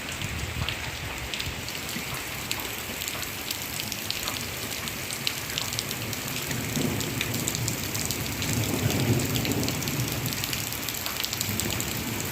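Heavy rain pouring down, a steady hiss with many small drop impacts. A low rumble swells up about halfway through and fades before the end.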